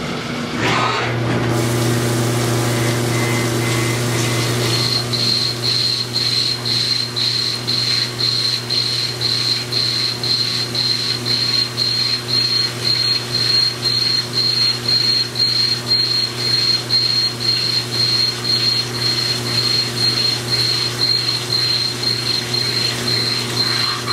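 CNC milling machine spindle spinning up near the start, then an end mill cutting the metal part under flood coolant. A steady high cutting whine comes in a few seconds in and rises and falls about twice a second with the toolpath, over the machine's steady low hum and the hiss of coolant spray.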